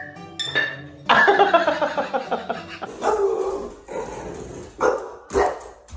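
A dog vocalizing: a long, wavering, drawn-out cry starting about a second in, a shorter one after it, then two short sharp calls near the end.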